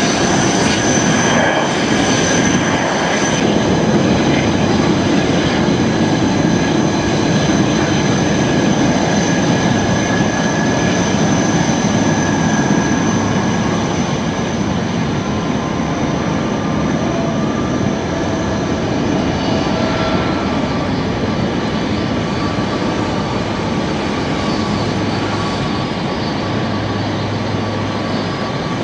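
Airbus A330-223's Pratt & Whitney PW4000 turbofan engines running at taxi power: a steady jet rumble with a thin high whine on top, easing slightly partway through.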